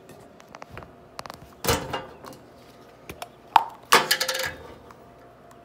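Plastic containers being handled: a plastic water bottle crinkling and an amber plastic pill bottle having its snap cap taken off, heard as scattered sharp clicks and short crackles, the loudest click about three and a half seconds in.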